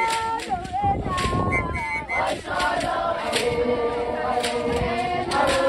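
A group of women singing a traditional Zulu chant together, with sharp percussive beats spread through it.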